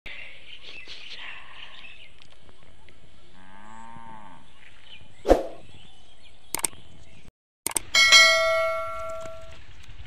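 Subscribe-button animation sound effects: mouse clicks followed by a bell ding about eight seconds in that rings out and fades over a second and a half. Before it, a faint outdoor background, a brief call that rises and falls in pitch, and a sharp thump about five seconds in.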